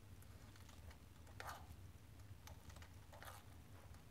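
Near silence with a few faint small clicks and two soft scraping rustles, about one and a half seconds and three seconds in, as an insertion tool is turned by hand, threading a steel M3 thread insert into a plastic RC car part.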